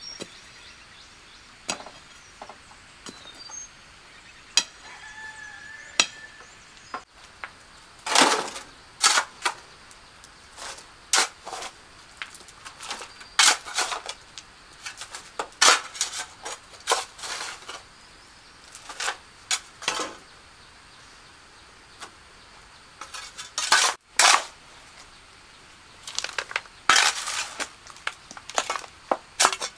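Repeated scraping and clinking of hard objects in short irregular clusters, starting about a quarter of the way in, typical of hand work with tools and building materials.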